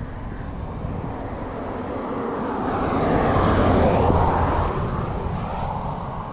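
A vehicle passing by: a rushing noise that builds to a peak about three to four seconds in and then fades away.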